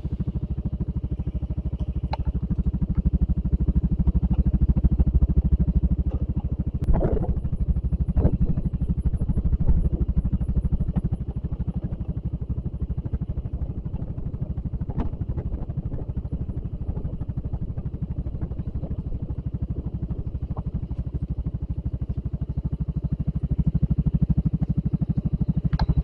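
Maxi-scooter engine running steadily at low speed, heard from the rider's seat, with a few short knocks from time to time.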